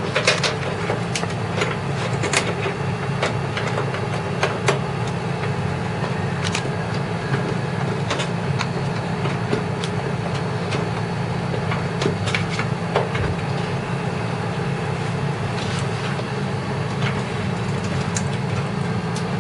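Small clicks and taps of computer power and data connectors and cables being handled and plugged in, over a steady low hum.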